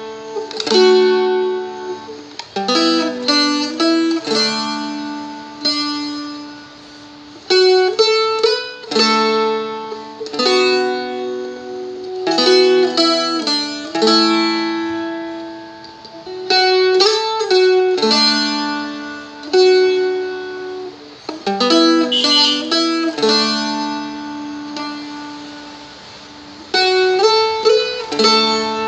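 A Seagull Merlin four-string strumstick playing a song: the melody is fretted on the D string and mixed with strummed chords, each note and chord ringing out and fading.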